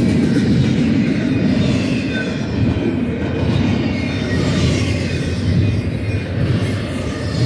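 Double-stack container well cars of a BNSF intermodal freight train rolling past at speed: a steady, loud rumble of steel wheels on the rails.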